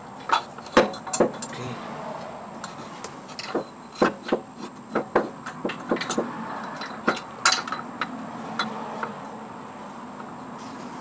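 Irregular sharp metal clinks and knocks of hand tools and bolts against a motor mount bracket and engine parts as the bracket is fitted. The louder knocks come about a second in and again between four and eight seconds in, over a steady low background noise.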